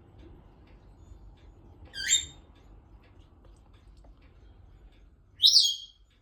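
Pet parrots giving two short, loud, high-pitched calls, one about two seconds in and a higher one near the end.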